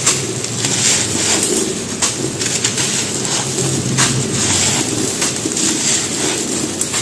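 Dry mud brick crumbling and crunching: a steady gritty crackle with frequent sharp cracks.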